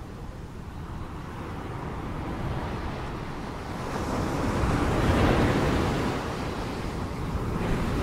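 Ocean waves washing on the shore. One wave builds to its loudest about halfway through and then recedes.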